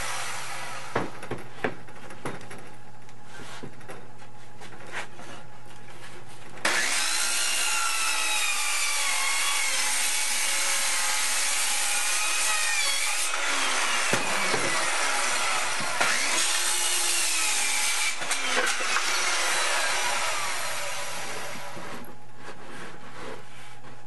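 Circular saw cutting through wood: a loud, continuous rush of cutting with a blade tone that wavers in pitch. It starts suddenly about seven seconds in, eases briefly in the middle, resumes, and fades out near the end. A few light clicks come before the cut.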